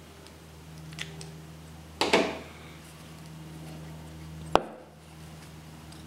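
Thin stainless-steel knife-scale pieces clicking and clattering as they are handled and fitted together: a faint click about a second in, a louder clatter about two seconds in, and a sharp click about four and a half seconds in.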